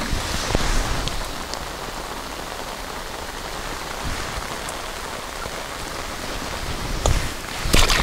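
Steady rain falling, heard from under a fishing umbrella. A few sharp knocks come near the end.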